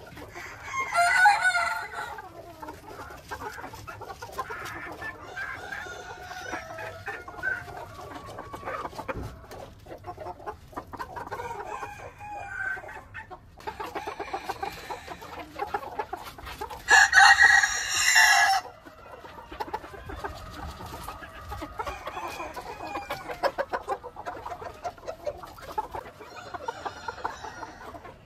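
Ko Shamo chickens clucking on and off, with two loud crows: a short one about a second in and a longer one a little past halfway.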